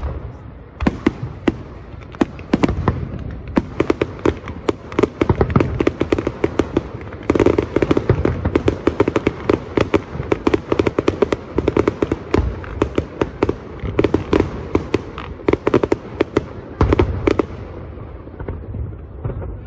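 Aerial fireworks display: many sharp bangs and pops from bursting shells in quick, dense succession, thinning out near the end.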